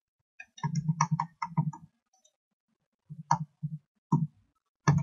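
Computer keyboard and mouse clicks as letters are entered into a crossword on screen: a quick run of clicks about half a second in, then a few scattered clicks in the second half.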